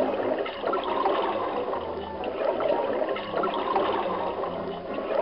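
Background music with held low notes that change every second or so, under a steady rushing noise.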